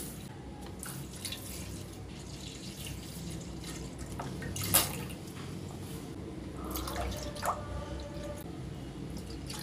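Milk pouring from a carton into a stainless steel karahi, a steady stream splashing into the milk already in the pan. A sharp click comes about halfway through, and a smaller one later.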